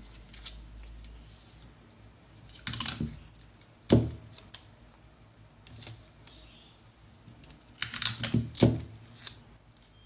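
Paper pattern pieces being handled and stuck down on a table: two short flurries of crinkling and clicking, about two and a half seconds in and again near eight seconds, with a single sharp knock about four seconds in.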